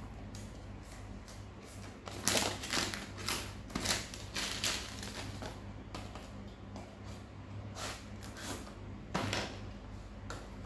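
Cellophane wrapper crinkling and a cardboard box rustling as a stationery box is unwrapped and opened by hand, in a run of crackles about two to five seconds in and again near nine seconds.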